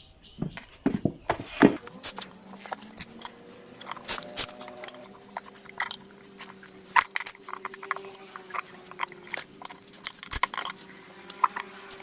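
Irregular clicks, knocks and metallic taps of tyre levers and tools working a motorcycle radial tyre's bead onto the rim, with a faint steady hum underneath.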